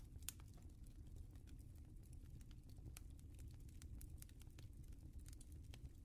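Near silence: a faint low rumble with scattered soft clicks and crackles.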